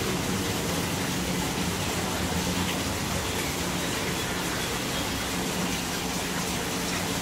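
Steady rushing of water, with a low hum underneath.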